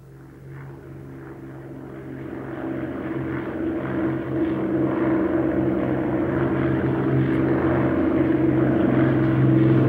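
A low, rumbling drone from the ballet's recorded score, with a few held low tones under a rough noisy wash, swelling steadily louder.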